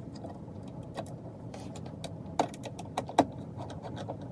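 Small clicks and light taps of computer parts being handled and fitted onto a motherboard, with two sharper clicks about two and a half and three seconds in.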